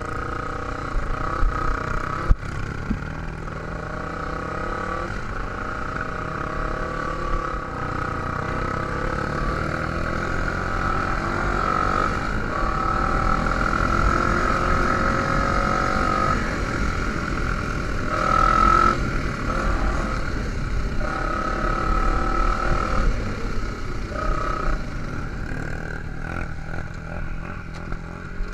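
Dirt bike engine running under way on a grass trail, its pitch rising and falling with the throttle, heard from on the bike itself. A sharp knock about two seconds in.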